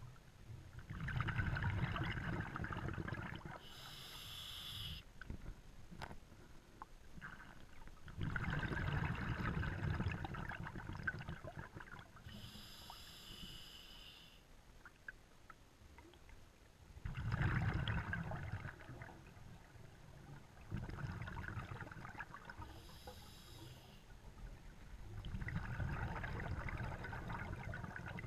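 Scuba diver breathing through a regulator underwater: several slow exhalations, each a rumbling burst of bubbles a couple of seconds long, with a short hiss of the demand valve on some of the breaths in between.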